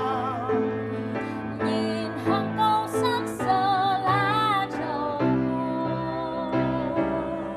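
A woman singing a slow Vietnamese ballad in Vietnamese, with a wavering vibrato on held notes, accompanied by grand piano.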